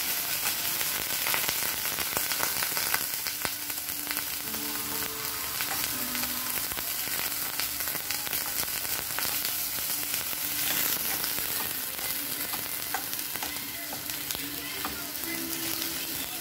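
Ground pork sizzling in a stainless steel frying pan, with a metal spatula scraping and clicking against the pan as the meat is stirred.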